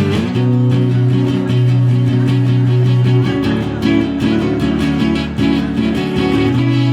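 Instrumental guitar music: strummed chords over sustained low notes, with the chord changing about three seconds in and again near the end.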